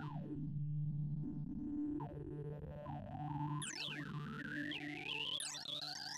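Synthesized tones from ArrayV's sonification of Circle Sort, each tone's pitch set by the value being compared or swapped, running in long glides that sweep up and down as the sort passes over a nearly sorted array of 1,024 numbers. A steady low tone holds underneath.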